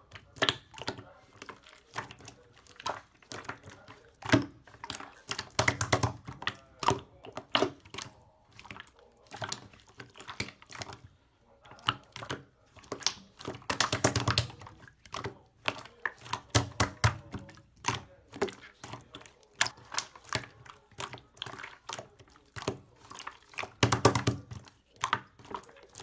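Pastel slime being squished, poked and pressed by hand: a steady run of sticky clicks and small pops, thickening into denser crackling a few times.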